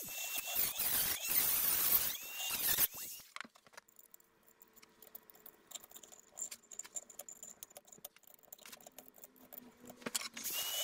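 A handheld rotary tool with a small cutoff wheel cuts into the Stihl MS-290 chainsaw's metal muffler cap to enlarge the exhaust ports. Its high whine dips in pitch again and again as the wheel bites, and it stops about three seconds in. Light scraping and clicking of a screwdriver working in the cut slot follows, and the rotary tool's whine starts again near the end.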